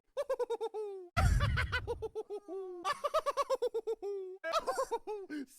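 Owl-like hooting: quick runs of short, repeated, giggle-like hoots, each note dipping in pitch, in four series with short pauses between them. A low rumble sounds under the second series.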